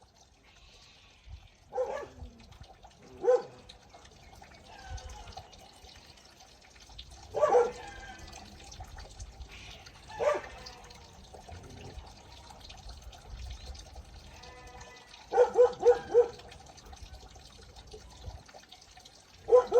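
A dog giving short, separate barks or yips every few seconds, with a quick run of about four near the end.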